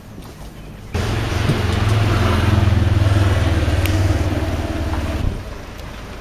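A motor vehicle's engine running close by, with a hiss over it, starting abruptly about a second in and cutting off a little after five seconds.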